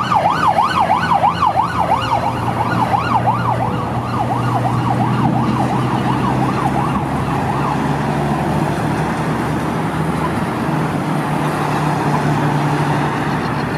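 Emergency vehicle's electronic siren on a fast yelp, rising and falling about three to four times a second and fading away over the first seven seconds or so, with the steady low hum of nearby traffic underneath.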